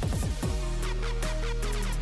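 Electronic background music with a deep bass drum, a quick ticking hi-hat rhythm and a short stepping synth melody.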